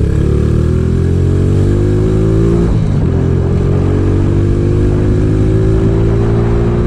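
Motorcycle engine pulling under acceleration, its pitch climbing steadily, with a brief break and a drop in pitch about three seconds in as it shifts up, then climbing again. Heavy wind buffeting on a helmet-mounted action-camera microphone rumbles underneath.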